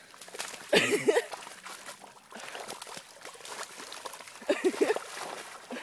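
Kelpie wading through a muddy, clay-filled water hole, its movement sloshing and splashing the water, with water trickling and dribbling.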